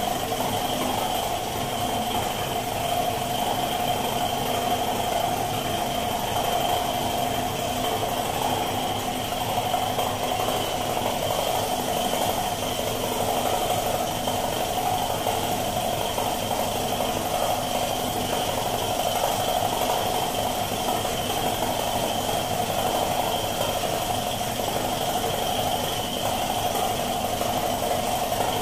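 Paint spray gun hissing steadily as it sprays metallic colour, fed by an air compressor running steadily under it.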